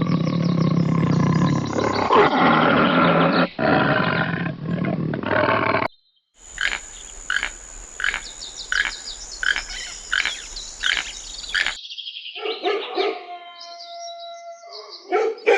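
A string of short animal-call clips cut together: about six seconds of loud, dense calling, a short break, then rhythmic calls about twice a second over a steady high hiss, then higher pitched calls with some held tones near the end.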